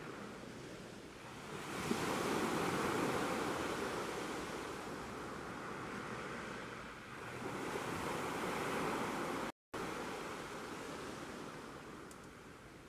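Sea waves breaking and washing on a shore. The surf swells twice, about two seconds in and again about seven seconds in, and eases off toward the end. The sound cuts out completely for a moment about three-quarters of the way through.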